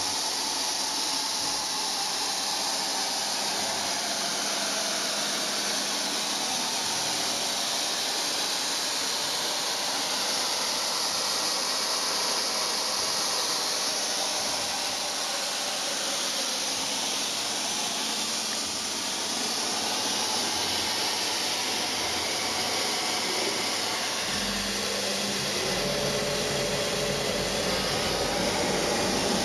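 Steady, loud hiss of compressed-air workshop equipment running without a break, the noise weighted toward the high end. Near the end a lower hum with a few steady tones joins in.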